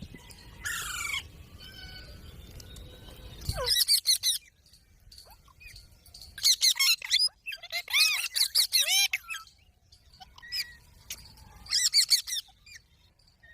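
Green parrot squawking in clusters of sharp, screechy calls: a group about four seconds in, a longer run from about six to nine seconds, and another near twelve seconds. A low rumbling noise fills the first few seconds.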